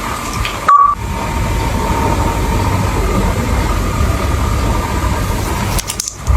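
A steady machine-like rumble with a constant high whine over it, briefly cutting out under a second in.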